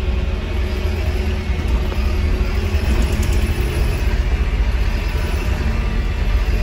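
Cabin noise inside a moving Volvo B5LH diesel-electric hybrid bus: a steady low rumble from the drivetrain and road, with faint whining tones above it.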